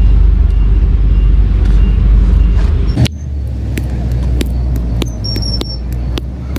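A steady low rumble, cut by a sharp knock about three seconds in and then a run of short sharp taps: an almond shell being beaten to crack it open.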